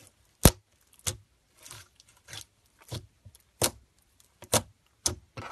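Glitter slime being kneaded and pressed by hand, giving a series of sharp wet pops and clicks, the loudest about half a second in, with softer squelching between.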